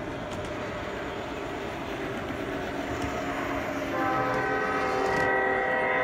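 Sound system of an MTH Gauge One SD70ACE model diesel locomotive: a steady running rumble, then the horn sounding about four seconds in, a chord of several notes held on.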